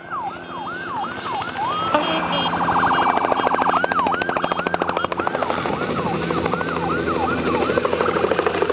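Low-flying helicopter herding reindeer: steady rotor chop, with a siren-like wail that falls in pitch over and over, about two to three times a second.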